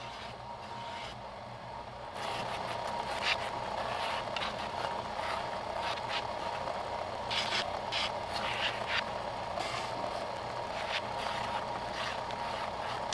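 Benchtop edge belt sander running. About two seconds in, a laminated wooden canoe stem is pressed against the belt, and the steady motor-and-belt noise grows louder with an uneven scratchy rasp of wood being sanded.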